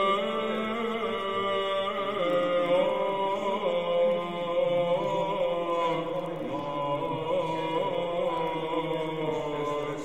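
Slow vocal chant in long, held notes that slide from one pitch to the next, playing as background music.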